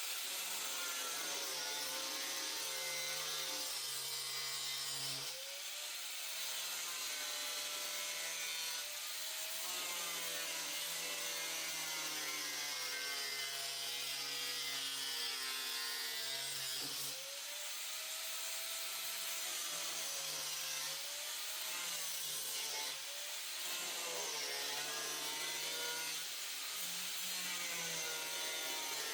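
Electric power tool running continuously under a changing load, its motor pitch dipping and recovering every few seconds over a steady high hiss, as when cutting or grinding.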